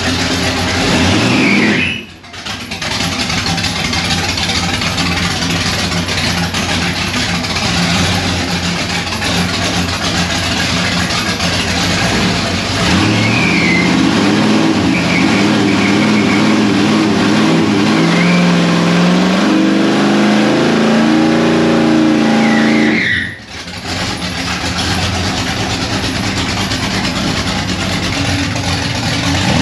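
1981 Chevy Camaro Z28's V8 revving hard during a burnout, the rear tyres spinning against the floor in a loud rushing hiss. The engine note climbs steadily past the middle, and the sound drops away sharply for a moment twice.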